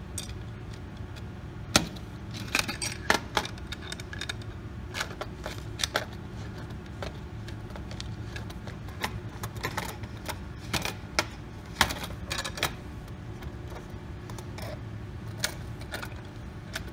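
Irregular metallic clicks and clinks of wrenches working a lock nut onto a steel lead screw, over a steady low hum.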